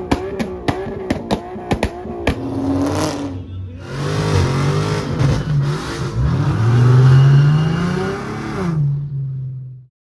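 Car engine revving repeatedly, its pitch climbing and falling, with the longest and loudest rev a little past the middle, then the sound cuts off suddenly. A couple of seconds of music with a steady beat come first.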